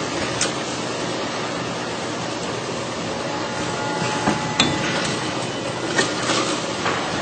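Multi-head piston filling machine running: a steady mechanical clatter with several sharp clacks from the machine's moving parts.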